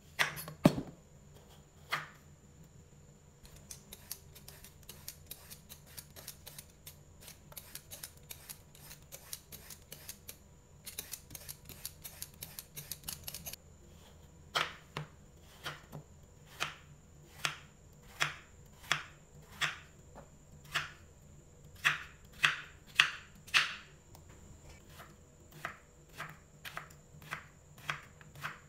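Knife cutting a bottle gourd on a wooden cutting board. A few sharp knocks near the start are followed by a long run of rapid, light knife strokes. From about halfway there are evenly spaced chops, roughly one a second, each ending as the blade strikes the board.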